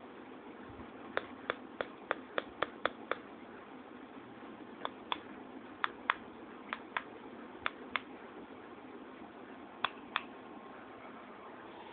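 Sharp single clicks over a faint steady hiss: a quick run of about eight clicks near the start, then clicks mostly in close pairs every second or so.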